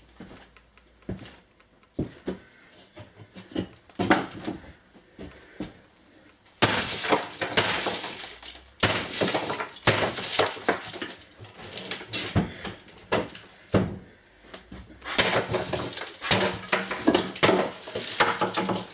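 Clattering and knocking of objects being picked up, shifted and set down by hand, with two longer bouts of rattling and scraping, one about a third of the way in and one near the end.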